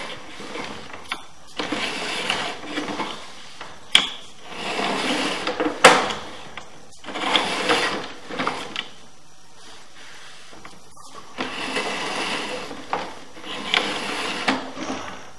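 Sewer inspection camera's push cable rattling and scraping in irregular bursts as the camera is fed through a drain pipe, with two sharp clicks a couple of seconds apart and a quieter lull past the middle.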